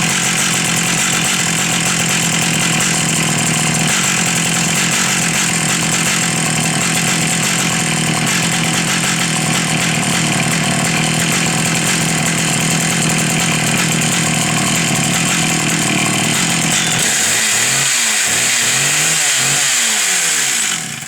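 McCulloch Pro Mac 800 two-stroke chainsaw, a 5 cubic inch saw, running steadily at a constant pitch. Near the end it is revved up and down several times and then cuts off suddenly.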